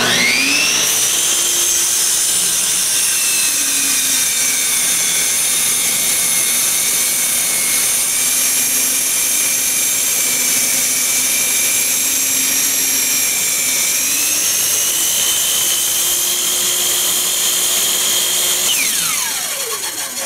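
DeWalt compound miter saw's motor whining up to speed, then running at a lower pitch under load while the blade is brought down into a block of wood. About three quarters of the way through the pitch rises again. Near the end the saw is switched off and the whine falls away as the blade spins down, the cut halted because something is blocking the saw from completing it.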